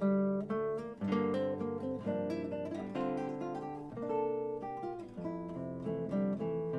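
Background music: an acoustic guitar playing a melody of plucked notes, one after another.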